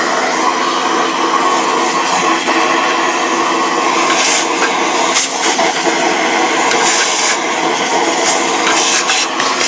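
Vacuum cleaner running steadily with a motor whine, its crevice nozzle sucking dust out of an open CB radio chassis. Several brief scratchy rustles come as a paintbrush sweeps the dust toward the nozzle.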